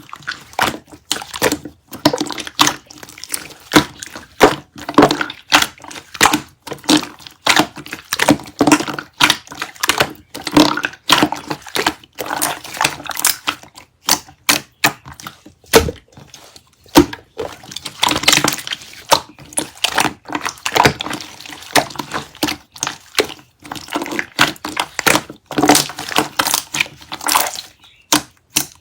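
Slime being squeezed and pressed by hand: wet squelching with dense, irregular clicks and pops of trapped air, several a second.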